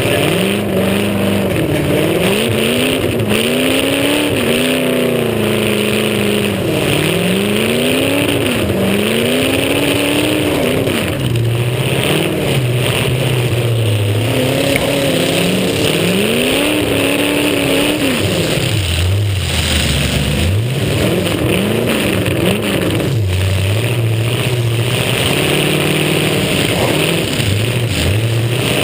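Demolition derby car engine revving hard, its pitch climbing and dropping again and again as the car accelerates and backs off, with a few brief knocks.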